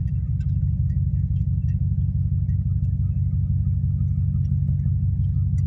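Pickup truck engine running steadily at low speed, heard from inside the cab as an even low rumble.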